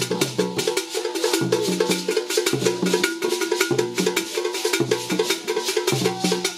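Traditional drumming: drums and other percussion playing a fast, steady, repeating rhythm.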